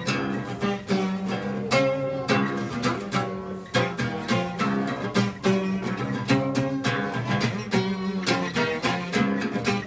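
String music: quick plucked notes over sustained low string tones, steady and moderately loud.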